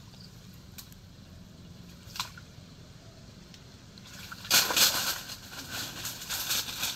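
A few faint clicks, then about four and a half seconds in a hunting dog starts splashing through shallow water after fish, in loud, uneven sloshing bursts.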